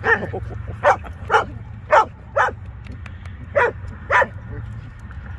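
A dog barking in about seven short, sharp barks, mostly in quick pairs.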